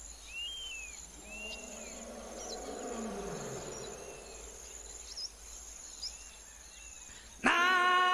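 Insects buzzing and trilling steadily with a few short bird-like chirps over a soft low rumble. About seven and a half seconds in, a loud voice breaks in with a long held sung note, the chanted opening of the song.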